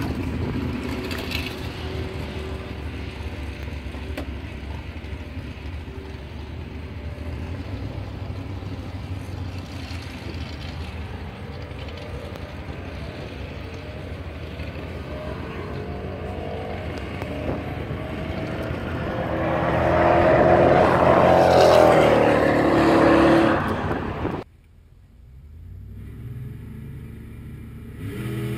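Supercharged V8 of a 2004 Ford F-150 SVT Lightning making a drag-strip pass at full throttle, heard from trackside. The engine noise holds steady for a long while, then grows loud as the truck comes near and goes past, and cuts off suddenly a few seconds before the end.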